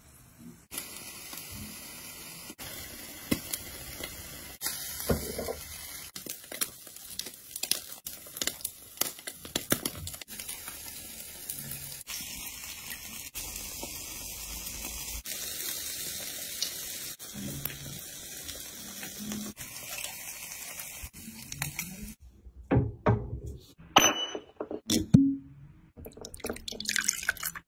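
A steady watery hiss, broken by scattered clicks and knocks, for most of the time. Near the end come several loud, sharp cracks and wet squelches as a halved, cooked spiny lobster is pulled apart by hand.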